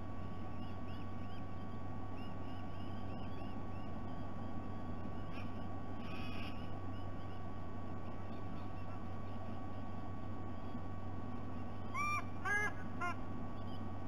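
White-bellied sea-eagle honking: a quick series of about four loud calls near the end. A steady low hum runs underneath, with faint small-bird chirps in the first few seconds.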